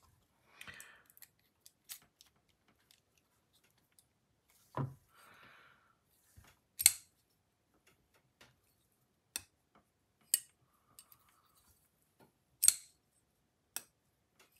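Sparse clicks and light taps of small metal tools and folding-knife parts being handled during reassembly. There is a dull knock about five seconds in and the sharpest click a couple of seconds later, with a few brief soft rustles between.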